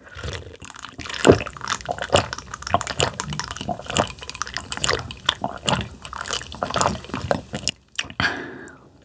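Close-miked gulping and swallowing as green-tangerine ade (cheonggyul-ade) is drunk from a glass mug in a long draught: a run of wet clicks and gulps that stops about eight seconds in.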